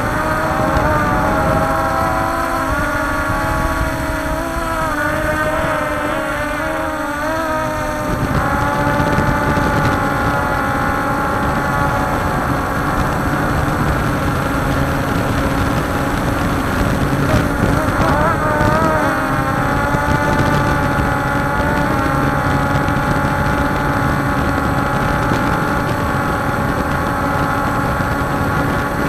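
Walkera Scout X4 quadcopter's four motors and propellers whining steadily, heard close up from the drone's own onboard camera. The several whining tones waver and shift in pitch as the motor speeds change for the turns, during the first eight seconds and again about 18 seconds in.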